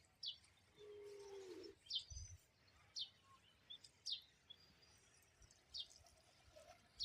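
A bird giving a short, falling, high-pitched call over and over, about once a second, faint against a quiet outdoor background. A faint low tone is held briefly about a second in.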